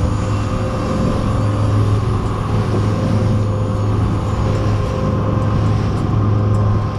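Outboard motor on an open fiberglass skiff running steadily at cruising speed, a constant low drone, with water rushing along the hull.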